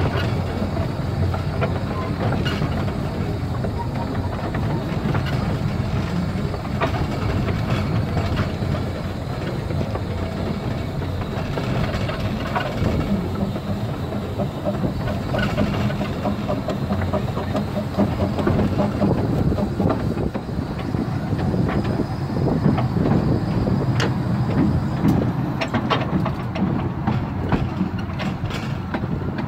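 Kerr Stuart Wren class narrow-gauge saddle-tank steam locomotive under way, heard from its footplate: a steady running noise with many short clicks and knocks from the wheels and motion on the track.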